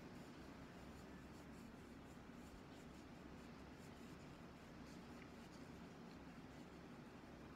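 Near silence: low room hum with faint, scattered light rubbing and ticking sounds.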